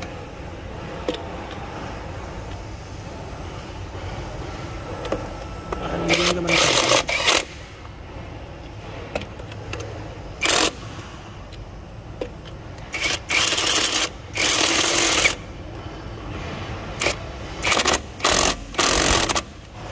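KONSUN KX73001 21V cordless impact wrench firing in a series of short bursts, the longest about a second and a half, as it spins lug nuts onto a truck wheel hub and hammers them tight.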